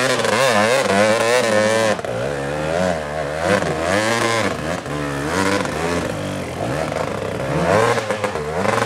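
Off-road dirt bike engine revving hard on a steep, muddy climb, its pitch rising and falling again and again as the throttle is worked. The sound changes abruptly about two seconds in.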